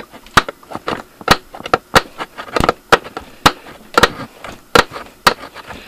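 Spark plug snapping as it fires from a Casoli 12-volt CDI and its ignition coil, fed by a battery pack that is running low. Sharp clicks come at irregular intervals, about two a second, with a few crowded together near the middle.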